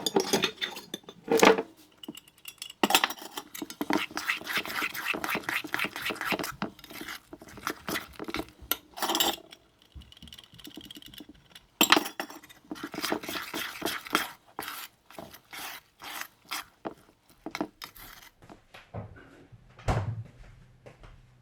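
Kitchen utensils clinking and knocking against bowls and dishes during food preparation: a run of short clatters, quick and dense in two stretches.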